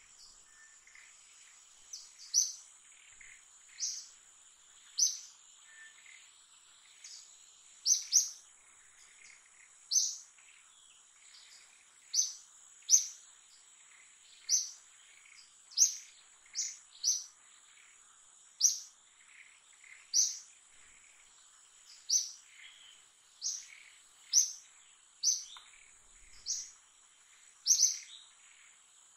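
A bird repeating a short high chirp about once a second, now and then in quick pairs, over a steady high-pitched insect drone.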